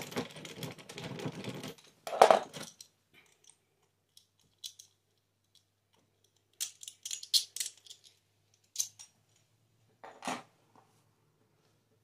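Screwdriver working a doorknob's mounting screw with rapid metallic clicking, then a loud clunk about two seconds in. After that come scattered small metallic clicks and rattles of the loosened brass knob being handled, and another knock near the end.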